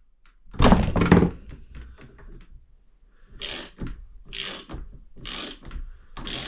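A loud metallic thunk about half a second in as the 24 mm socket goes on, then a 1/2-inch ratchet cranking in short strokes about once a second, loosening the compression valve of a WP XPLOR motorcycle rear shock.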